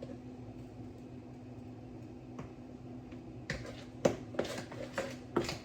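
A steady low hum, then from about three and a half seconds in a handful of light clicks and knocks from kitchenware being handled.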